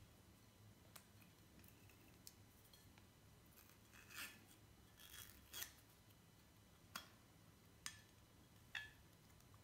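Faint, scattered snips and scrapes, about eight at irregular intervals, from the seal on a whisky bottle's neck being cut away.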